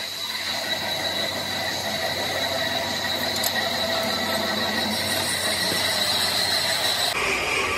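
Metal lathe running as it turns a diesel engine cylinder sleeve, with a steady high-pitched squeal over the machine noise. The sound shifts abruptly near the end.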